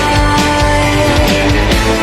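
Pop-rock song playing as background music, with a held melody note over a steady drum beat, in a gap between sung lines.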